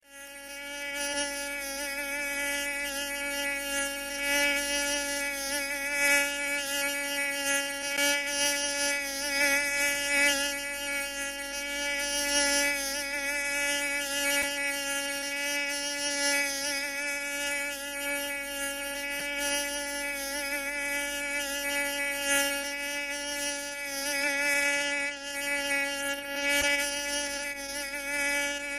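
Mosquito whining in flight, a steady high buzz that wavers slightly in pitch and loudness as it hovers.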